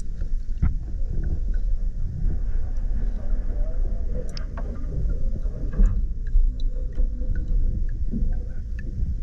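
Low, steady rumble of a boat under way, with scattered light clicks and knocks.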